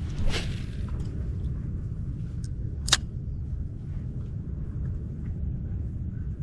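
Wind buffeting the microphone as a steady low rumble, with a short whoosh near the start and one sharp click about three seconds in.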